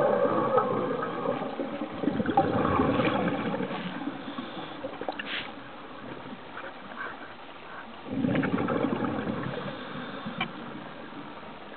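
Scuba diver's exhaled regulator bubbles gurgling underwater, in three surges: at the start, from about two to four seconds in, and again about eight seconds in.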